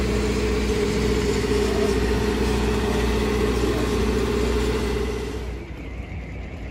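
Semi truck's heavy diesel engine idling steadily, with no revving, dropping away about five and a half seconds in.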